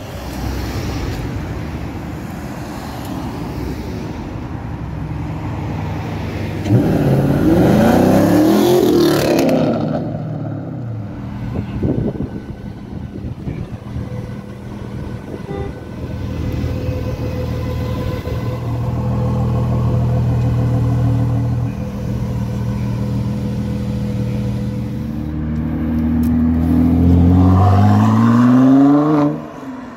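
Car engines as cars drive off one after another; one revs hard, its pitch swinging up and down, from about seven seconds in, and another accelerates away near the end with its engine note rising.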